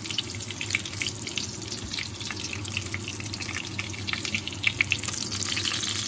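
Hot oil sizzling around flour-coated ground-meat patties shallow-frying in a pan, a steady hiss with many small crackling pops.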